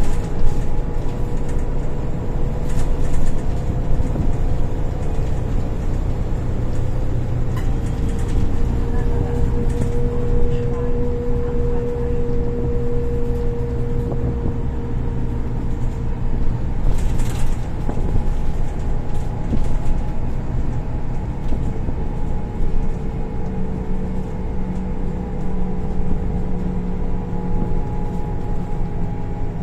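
Cabin noise of a Golden Dragon XML6125CC city bus under way: a steady low rumble from the engine and Voith automatic transmission, with a whining tone that slowly rises and then falls as the bus gathers and loses speed. A few short rattles and knocks of the bodywork come through, one of the clearest about halfway through.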